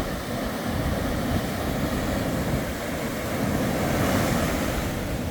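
Surf breaking on a beach, mixed with wind buffeting the microphone in a steady, choppy rumble. The rush of the surf swells about four seconds in.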